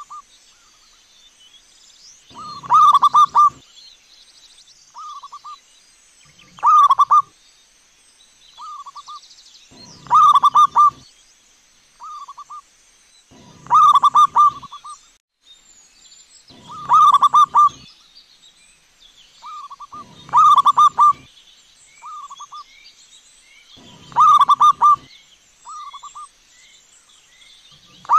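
Zebra doves cooing: a loud, trilled coo phrase every three to four seconds, with a shorter, quieter coo between each.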